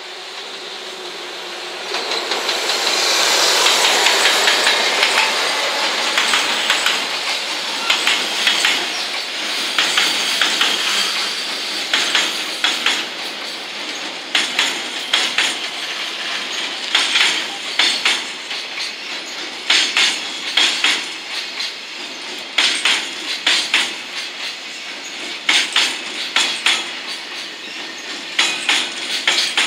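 JR Freight EF210 electric locomotive passing, loudest a few seconds in, followed by a long rake of container wagons rolling by, their wheels clicking over the rail joints in clusters every second or two.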